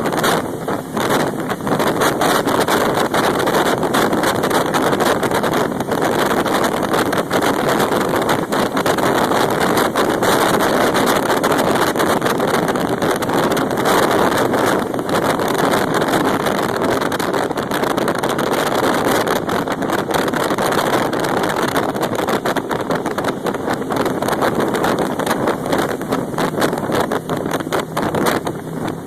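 Jet boat running, a steady loud rush of engine and water, with wind buffeting the phone's microphone in constant flutters.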